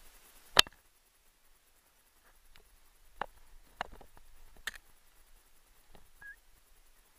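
One loud sharp crack about half a second in, then scattered lighter snaps and clicks of twigs and brush underfoot as a person moves through dense woods, with a brief high chirp near the end.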